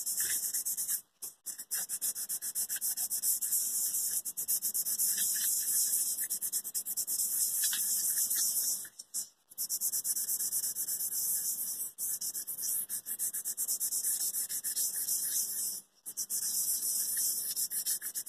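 Fine sandpaper rubbed rapidly back and forth over a Philips steam iron's soleplate, scouring off baked-on dark residue. The strokes are fast and rhythmic, broken by short pauses three times.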